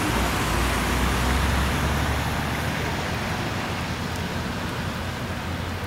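A work train of yellow railroad track-maintenance machines rolling past, a steady low rumble and hum that slowly fades as the tail car goes by.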